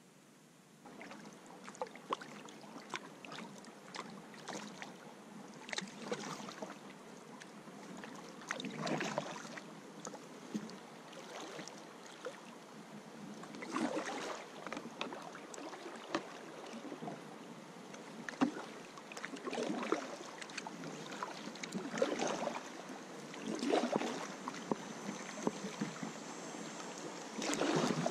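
Paddle strokes in river water from a canoe or kayak: irregular swells of splashing and dripping over a steady hiss of moving water, starting about a second in.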